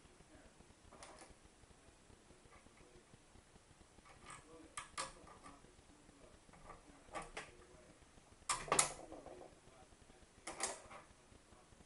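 Scattered sharp clicks and light knocks of small metal parts being handled and fitted together, about eight of them at uneven intervals, the loudest pair a little past the middle.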